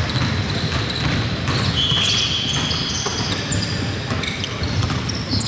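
Basketball being dribbled on a gym's hardwood court during play, with a high squeak lasting about a second near the middle, over the steady noise of the game.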